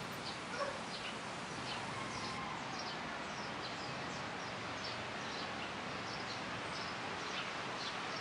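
Garden ambience picked up by a compact camera's built-in microphone: a steady hiss with small birds chirping, short high chirps repeating every fraction of a second.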